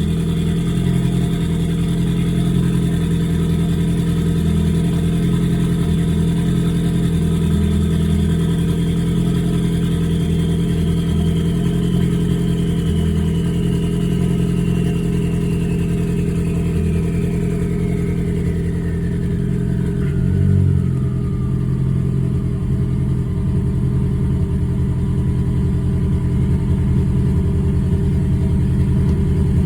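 Ford Focus engine idling steadily, with the misfire the tuner later logs on cylinder 3. A faint high whine drops steadily in pitch from about a third of the way in and levels off low past the middle.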